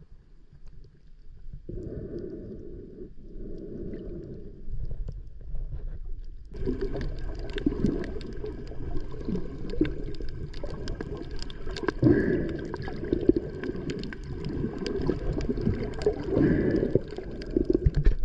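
Muffled underwater sound from a submerged camera: uneven water rumbling and sloshing, with many small sharp clicks joining from about six seconds in.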